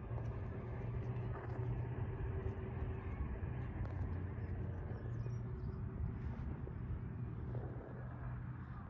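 Steady low motor-vehicle engine hum, easing slightly near the end, with a few faint high chirps about five seconds in.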